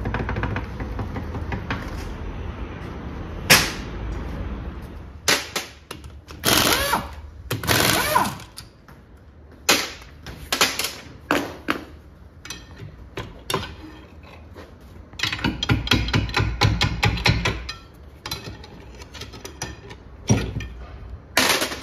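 Metal hand tools clanking and knocking inside a Tofaş rear-axle differential housing as its gears are worked on. There is a sharp single knock about three and a half seconds in, then irregular clatter, and a stretch of rapid rattling strikes past the middle.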